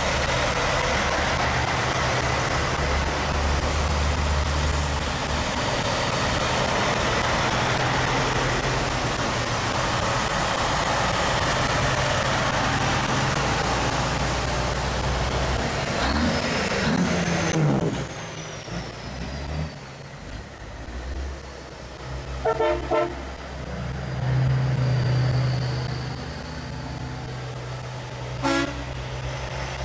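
Semi-truck tractors driving past on a wet road: diesel engines running under a steady hiss of tyres on wet pavement, much quieter after about 18 seconds. A truck horn gives a quick series of short toots about 22 seconds in, and one more short toot near the end.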